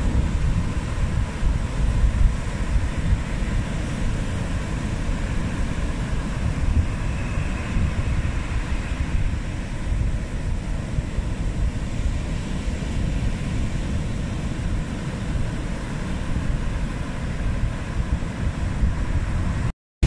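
Rough surf breaking and washing up a sandy beach in a strong wind, with wind buffeting the microphone. The sound drops out briefly just before the end.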